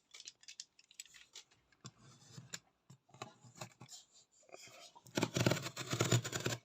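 Shipping parcel packaging being cut and opened: scattered sharp clicks and scraping, then a louder stretch of rustling and tearing about five seconds in.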